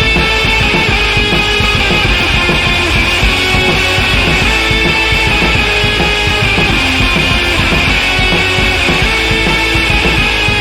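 Loud background music, a fast rock track with drums and guitar and a steady driving beat.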